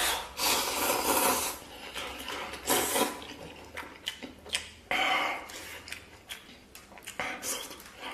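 A person slurping instant noodles in tomato broth. One long slurp comes about half a second in and shorter slurps come near three, five and seven seconds in, with chewing and small clicks between them.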